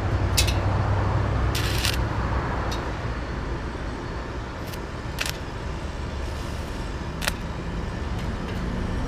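Stick-welding arc from a Resanta 190 inverter welder running a 2 mm electrode while welding a hinge onto a steel fence post: a steady hiss with sharp crackles scattered through it. A low road-traffic rumble runs underneath.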